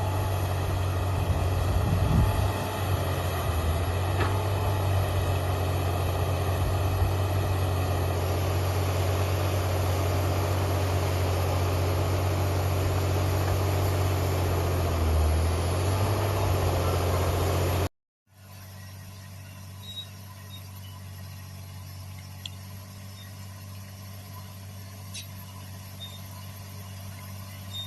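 Heavy diesel engine of earthmoving machinery, an excavator or bulldozer, running steadily and loudly with a deep hum. It cuts off suddenly about two-thirds of the way in and is followed by a much quieter steady engine hum with a few light clicks.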